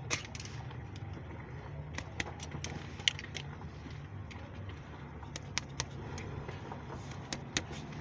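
Scattered sharp metallic clicks and clinks, irregular and about a dozen in all, over a steady low hum.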